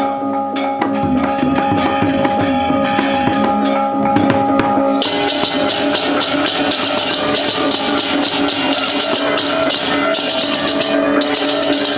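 Balinese gamelan music: ringing metallophone tones with drumming. About five seconds in, a fast, even run of bright clashing strokes joins, typical of ceng-ceng cymbals.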